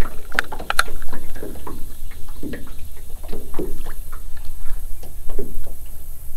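Water lapping and slapping against the hull of a small boat in irregular splashes, over a steady low rumble of wind on the microphone. A few sharp clicks come about half a second in.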